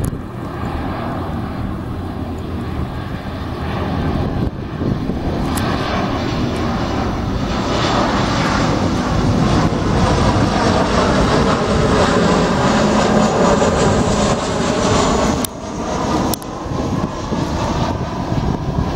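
Airliner arriving to land, its engines growing louder to a peak a little past halfway and then dropping away sharply.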